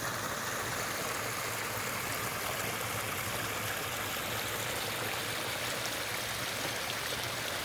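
Small forest stream babbling steadily over its bed.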